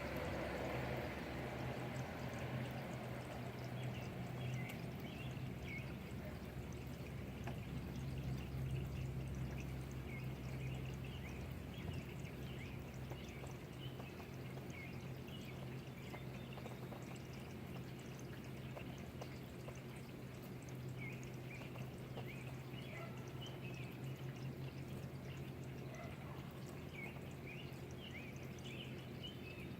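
Rainwater pouring and dripping, with many small scattered drip ticks over a steady low hum.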